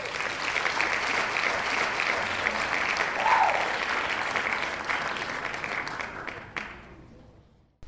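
Audience applauding, a dense patter of many hands clapping that dies away over the last two seconds.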